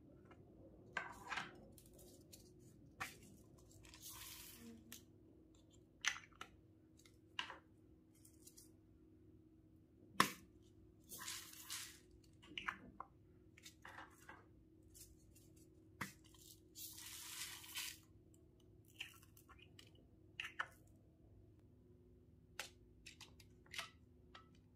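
Faint handling sounds of a slime bowl: small plastic molds and toy pieces clicking as they are picked up and set down, with short scratchy rustles of foam beads between them. The sharpest click comes about ten seconds in.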